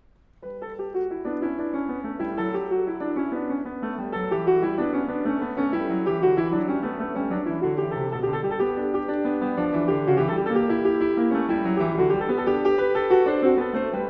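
Piano music, a flowing run of notes rising and falling, starting about half a second in after a moment of near silence.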